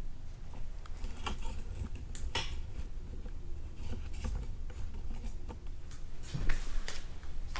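Handling noise at a sewing table: scattered light clicks and knocks with some rustling of fabric, over a steady low hum.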